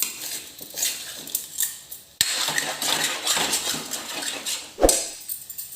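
A spoon stirring and scraping thick ginger-turmeric paste around a kadhai, with scattered clinks against the pan. A sharper knock comes near the end.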